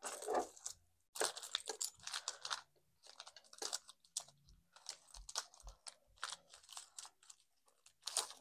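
Small items being put back into a mesh zip pouch by hand: irregular crinkling and rustling with light clicks and a few soft taps.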